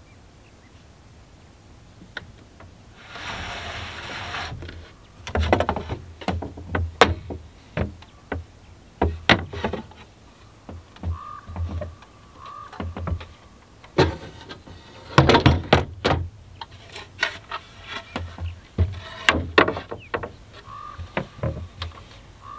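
Wooden companionway drop boards of a Catalina 30 sailboat being opened and lifted out: a sliding scrape about three seconds in, then a long run of irregular wooden knocks and clunks as the boards are handled and set down.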